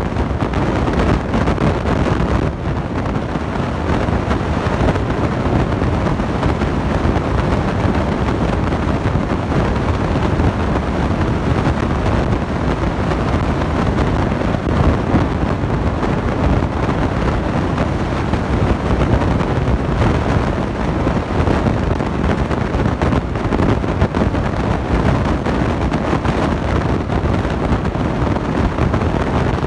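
Refrigerated glass-door beverage cooler's condensing unit running: compressor and condenser fan giving a loud, steady rushing hum, picked up close to the cooler's bottom grille.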